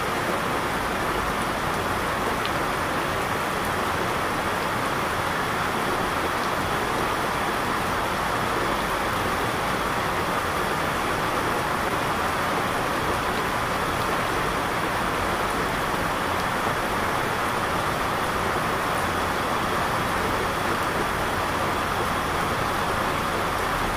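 Steady, even rushing noise that does not change, the masking track of a subliminal audio.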